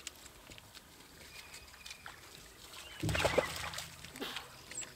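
African wild dogs playing in a muddy puddle, splashing and scuffling: quiet at first, then a loud splashing burst about three seconds in and a smaller one a second later. Faint high bird chirps near the end.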